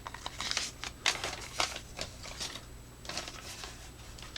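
Packaging being handled and opened by hand: irregular rustling and scraping with sharp clicks.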